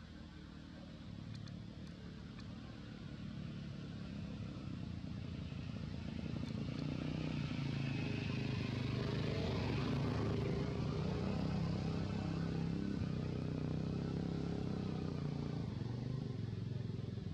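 A motor vehicle's engine running as it passes, a steady low hum that grows louder over about ten seconds, holds, then starts to fade near the end.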